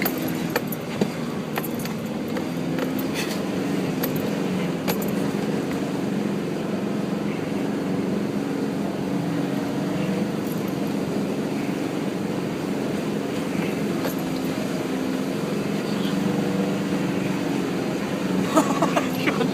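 Four-wheel drive's engine running steadily at low revs as it crawls a rough off-road track, with scattered brief knocks and rattles.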